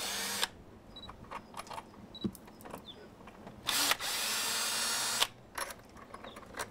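Cordless drill/driver running in two short bursts, backing out the screws of a door-jamb strike plate. Small clicks and knocks of the screws and plate come between and after the bursts.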